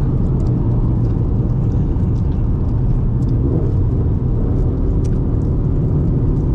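A 2004 Subaru WRX driving: steady low engine and road rumble with a few faint clicks.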